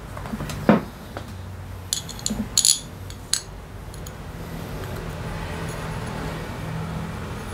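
Small metal parts of a motorcycle starter motor being handled and fitted by hand: a knock just under a second in, then a run of sharp metallic clicks and clinks between about two and three and a half seconds in, over a low steady hum.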